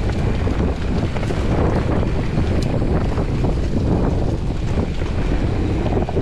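Wind buffeting the camera microphone while a Giant Trance 29er mountain bike rolls at speed over dirt singletrack, with steady tyre rumble and faint rattles from the bike.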